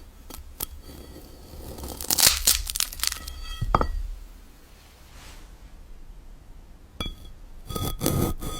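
Synthetic knife-through-glass sound effect of a blade slicing a glass dragon fruit: crisp crackling and crunching in two bursts with a sharp click between them, and short glassy ringing tones.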